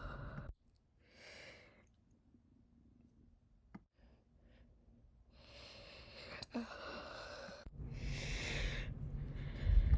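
A woman breathing audibly between hiccups: several long breaths, with short sharp hiccups about four and six and a half seconds in, and a low thump near the end.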